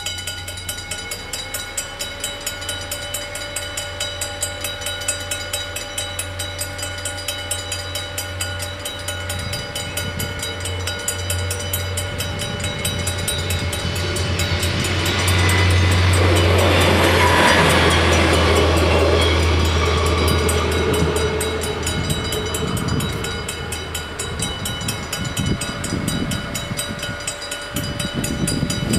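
Level-crossing warning bells ringing rapidly and steadily while a Stadler GTW diesel multiple unit passes over the crossing about halfway through, its running noise swelling loud for several seconds and then fading. The bells fall silent at the very end as the crossing clears.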